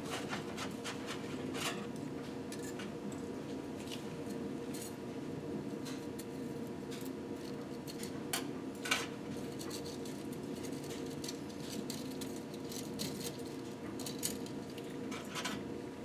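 Light, scattered metallic clicks and clinks of thin steel piston oil-control ring rails being separated and handled, over a steady background hum.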